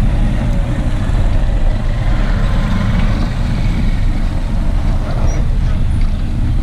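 Street traffic of scooters and motorbikes, with a steady low rumble of wind on the microphone.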